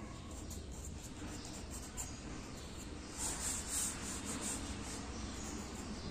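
Pencil writing on paper: faint scratching and rubbing of the lead and hand on the sheet, a little louder for about a second around three seconds in.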